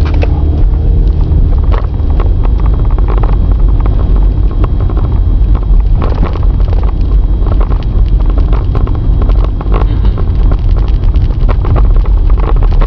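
Car on the move: a steady low road and engine rumble with wind buffeting the microphone, and frequent small rattles and knocks throughout.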